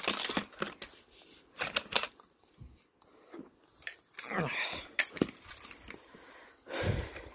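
Airsoft machine gun being handled: scattered clicks and knocks, with fabric rustling, and a low thump near the end.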